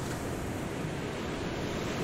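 Steady rushing of ocean surf, even throughout with no single wave standing out.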